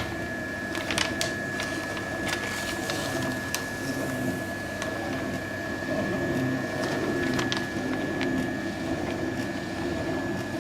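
Horizontal continuous band sealer running steadily while a foil bag is fed through to be sealed: a motor hum with a steady high whine and scattered light clicks.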